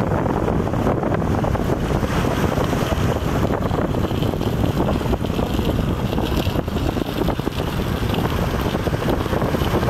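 Steady wind noise on the microphone over the sound of a boat on open water.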